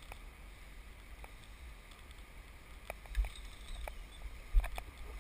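Low, steady rumble of wind buffeting the microphone, with a few scattered short clicks and knocks.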